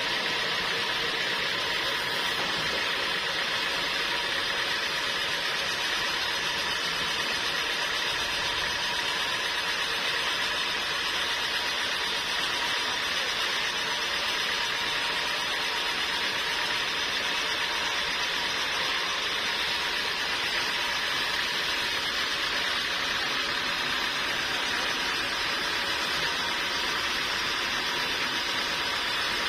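Sawmill machinery running steadily: a continuous even noise with a few faint steady tones and no let-up.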